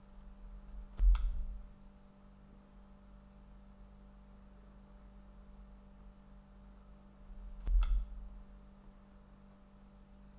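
Snooker balls struck in play: two shots about six and a half seconds apart, each a sharp click with a low thud that dies away quickly. A steady low hum runs underneath.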